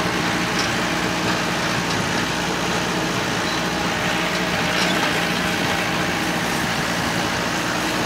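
Tractor engine running at a steady speed while pulling a hay rake to make windrows.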